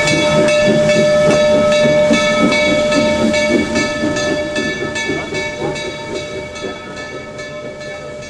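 Steam locomotive sounding a loud, steady pitched tone with a quick, even pulse of strikes through it, over hissing steam; the sound fades gradually over the second half.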